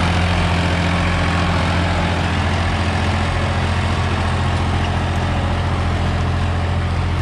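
Preet 955 tractor's diesel engine running steadily under load, pulling an 8x8 disc harrow through the soil.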